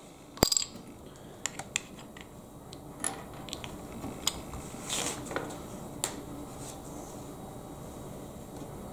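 Small plastic Lego pieces clicking and tapping against each other and the wooden tabletop as they are picked up and pressed together. A scattering of sharp little clicks, thinning out after about six seconds.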